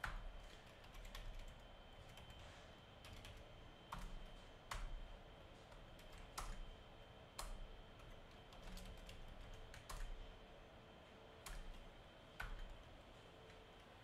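Computer keyboard being typed on slowly: about a dozen faint, irregular keystrokes, roughly one a second.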